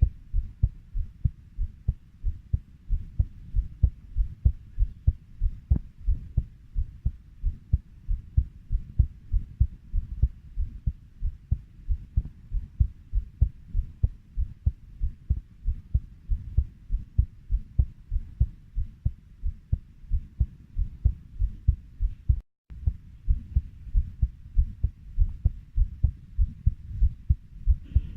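Human heartbeat at a steady 90 beats a minute, each beat a low lub-dub pair of thumps. The sound drops out for a split second about 22 seconds in.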